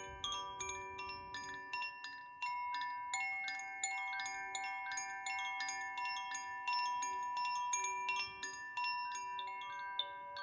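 Koshi chime being swayed so its clapper strikes the tuned metal rods: quick, irregular strikes several times a second, each leaving sweet ringing tones at several pitches that overlap and sustain.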